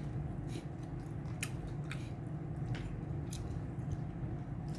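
A person eating: chewing and mouth smacks, heard as a few scattered short clicks, over a steady low hum.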